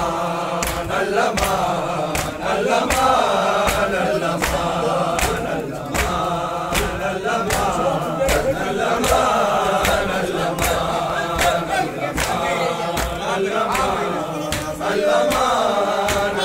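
Crowd of men chanting a noha (Shia mourning lament) together, over the sharp rhythmic slaps of hands beating chests in matam, a little under two beats a second.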